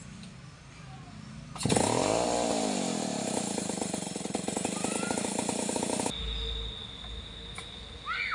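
A Stihl 070 chainsaw's large single-cylinder two-stroke engine fires up about a second and a half in and revs briefly. It then runs steadily with a fast, even putter for about four seconds and cuts off suddenly.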